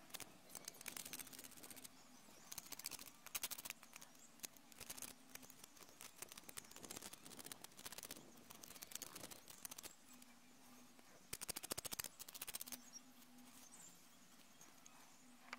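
Faint scraping of a knife blade over a plaster paw-print cast, cleaning dirt off it: short runs of rapid scratchy clicks, about five times with pauses between.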